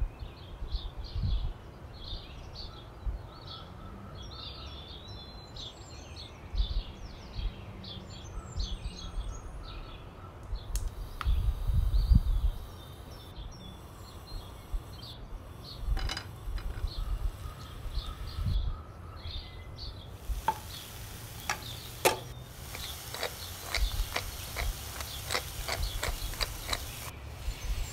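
Outdoor ambience: birds chirping over an uneven low rumble for the first ten seconds or so. In the second half come scattered sharp clicks, then a denser run of light clicks and taps.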